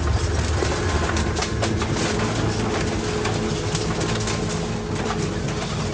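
Ground shaking in a great earthquake: a steady low rumble with continual rattling and clattering throughout.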